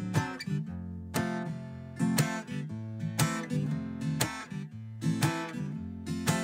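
Background music: acoustic guitar strumming chords, a strong strum about once a second.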